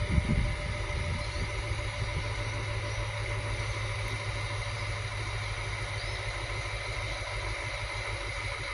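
Adelaide 3000/3100-class diesel railcars idling at a platform: a steady low engine hum with a constant higher whine over it.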